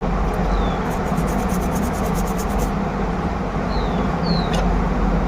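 Steady background hum and hiss with a low drone underneath. A run of faint, rapid ticks comes in the first few seconds, and a few short, high, falling chirps are scattered through it.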